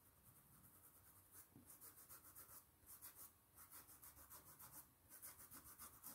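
Faint, quick scratching strokes of a pencil drawn over fabric, several strokes a second in short runs with brief pauses between them.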